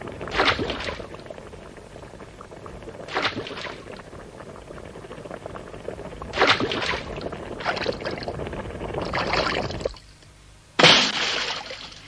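Cartoon sound effects of liquid pouring and splashing: a steady wash with five louder surges. It cuts off suddenly about ten seconds in, and one last loud splash follows near the end.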